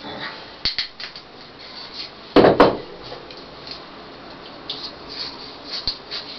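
Light clicks and knocks of wood and tools being handled on a workbench. A louder double knock comes about two and a half seconds in.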